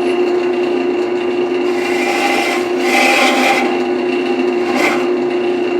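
Wood lathe running with a steady motor hum while a carbide turning tool scrapes and cuts wet wood, the hissing cut swelling and easing as the tool makes passes.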